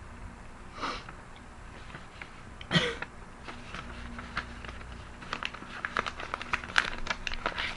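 A girl coughs twice: a short cough about a second in, then a sharper, louder one near three seconds. After that comes a run of quick, irregular light clicks.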